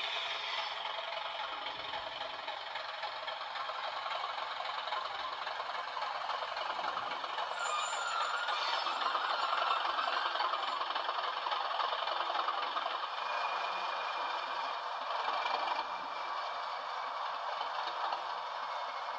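Diesel engine sound from a sound-fitted Bachmann Class 37 model locomotive's DCC sound chip, played through a small loco speaker, with little deep bass. It runs steadily and grows louder from about a third of the way in, easing again near the end.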